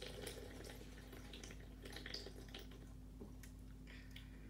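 A person sipping and swallowing carbonated soda from a can, faint, with small wet clicks.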